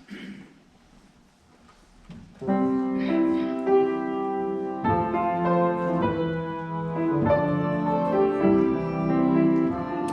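Piano begins playing chords about two seconds in and continues a slow, classical-style piece. It is preceded by a brief rustle or shuffle.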